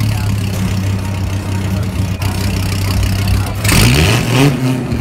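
Dodge Viper GTS's V10 engine idling steadily, then revved in short blips near the end, the pitch climbing and dropping back.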